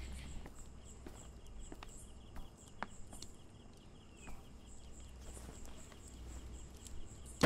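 Crickets chirping in a quiet night ambience, a high chirp repeating about twice a second over a low rumble, with a few faint clicks. A loud gunshot breaks in at the very end.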